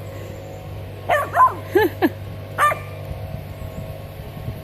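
Puppy yipping: a quick run of short, high, pitched yelps about a second in, then one more yip about half a second later.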